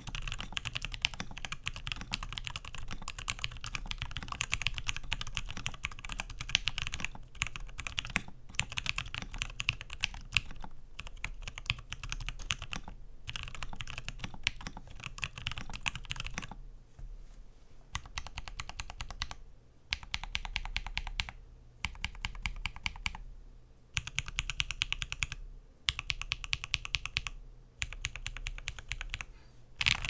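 Typing on a custom 60% mechanical keyboard: lubed and filmed Durock T1 tactile switches with Durock stabilizers, on an aluminium plate in an aluminium Tofu60 case dampened with shelf liner, under KPRepublic keycaps. Continuous fast typing for about the first half, then short bursts of keystrokes with brief pauses between them.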